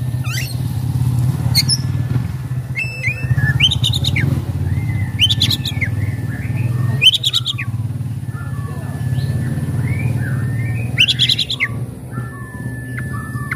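Oriental magpie-robin singing: long, flat held whistles broken by four or five harsh rasping bursts, over a steady low hum.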